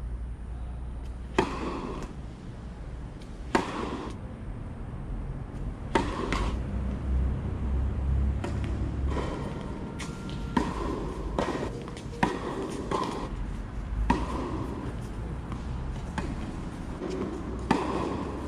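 Tennis ball struck back and forth with rackets in a rally: a sharp pop of ball on strings every two seconds or so.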